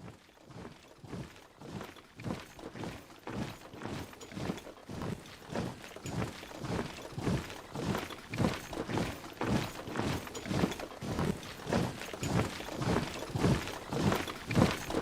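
Marching footsteps of many soldiers in step, about two strides a second, growing steadily louder as the column approaches.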